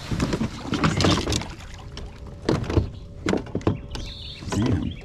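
Irregular knocks and scrapes of fishing gear being handled against a plastic kayak hull and deck, with a few louder bumps spread through.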